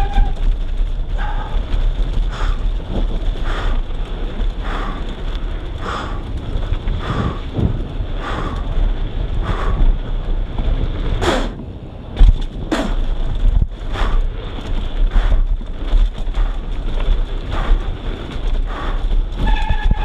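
Mountain bike rolling fast down a dirt downhill trail, heard from a camera on the bike or rider. Wind buffets the microphone and the tyres and frame rattle steadily. Sharp knocks come from bumps, the loudest about halfway through after a brief quieter moment.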